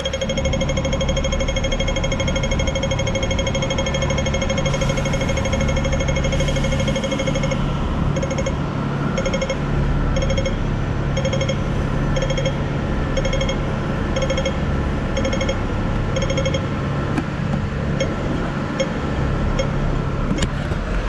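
Hong Kong pedestrian crossing audible signal: a rapid run of beeping ticks (the walk phase) that changes about seven seconds in to a slow beep about once a second (the don't-walk phase), which goes on as fainter ticks near the end. A low steady hum of idling traffic lies underneath.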